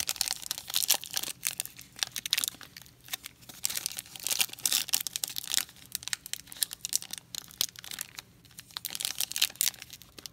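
Foil wrapper of a 2016 Donruss Optic football trading-card pack crinkling and tearing as it is pulled open and handled by hand, in an irregular run of sharp crackles.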